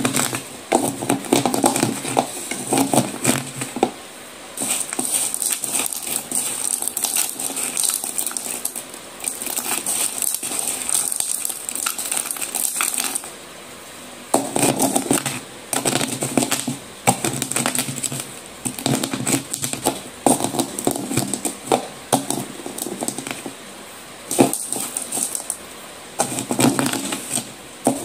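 Broken slate-pencil pieces crackling and crunching as they are pressed and crushed in a bowl: dense runs of sharp little cracks with gritty scraping between them, broken by a few short pauses.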